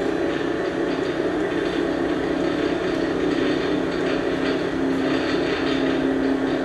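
Union BFT 130/6 CNC horizontal boring mill running as its headstock is power-fed down the column, a steady machine hum with a constant drone that grows stronger near the end.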